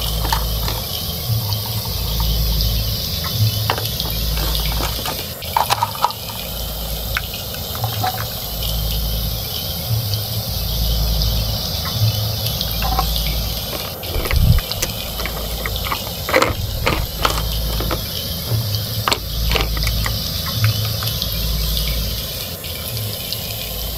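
Toy stove with a steaming frying pan, making a steady frying-like hiss with a low pulse that repeats about every two seconds. A few sharp plastic clicks and taps come over it.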